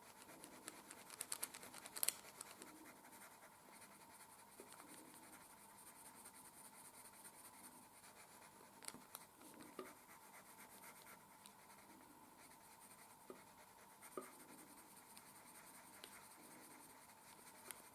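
Coloured pencil shading lightly on paper: a faint, soft scratching of the pencil lead, with a few sharper ticks about two seconds in.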